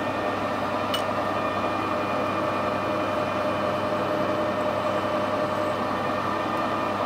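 Metal lathe running steadily, a steady hum with several steady tones, as a spot drill in the tailstock is fed into the end of a spinning bar held in a collet chuck. A small click about a second in.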